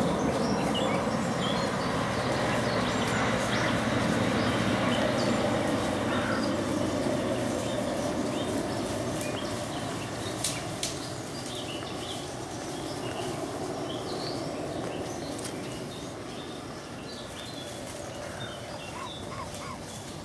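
Scattered chirps of small woodland birds over a steady rushing background that slowly fades, with two sharp clicks about halfway through.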